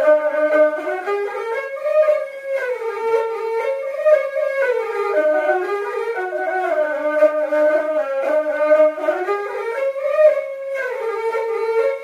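Background instrumental music: a single melody line stepping up and down in pitch, note by note.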